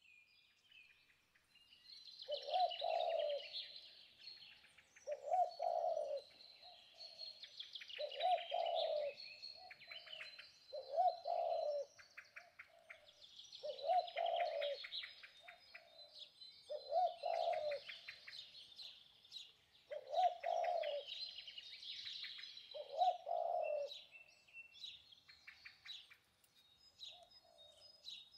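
Birdsong: a dove cooing roughly every three seconds, each call about a second long, over continuous high, rapid chirping of small birds.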